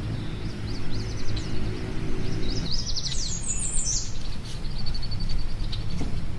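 Small birds chirping in quick series of short, high notes, densest and loudest a little before the middle, then a fast trilled call for over a second. A low steady hum runs underneath through the first half.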